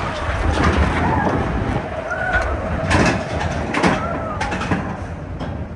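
Matterhorn Bobsleds coaster car running fast along its tubular steel track, with a steady rumble from the wheels, repeated clatter and rushing air. A few short high notes that rise and fall sound over it about two, three and four seconds in.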